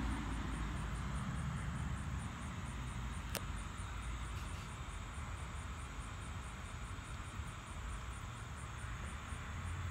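Steady outdoor background noise with a low rumble like distant traffic, and a single faint click about three and a half seconds in.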